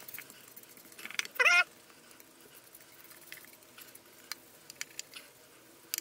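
Faint taps and scratches of a brush spreading contact cement inside a wooden cigar box, with one short high-pitched whine, rising then falling, about a second and a half in.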